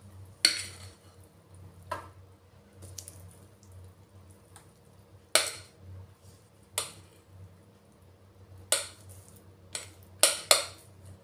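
A spatula scraping and knocking against a glass mixing bowl while batter is scraped out into a loaf pan: a series of sharp clicks and knocks at irregular intervals.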